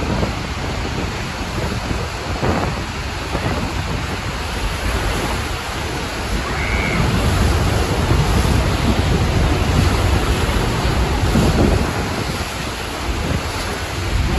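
Steady roar of Niagara's Horseshoe Falls, heard close below the falling water from a tour boat, with wind rumbling on the microphone.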